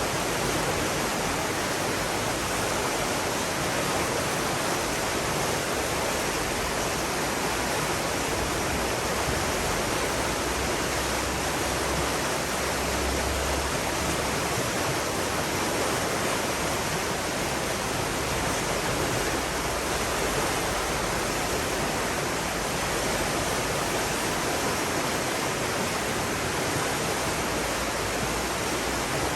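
Steady rushing water, a continuous even wash of noise with no drips, splashes or changes.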